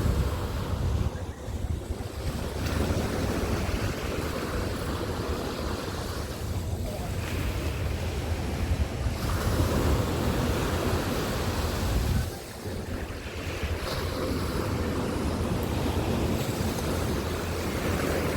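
Sea waves breaking and washing up on a beach in a continuous surging hiss, with wind buffeting the microphone as a low rumble that eases about two-thirds of the way through.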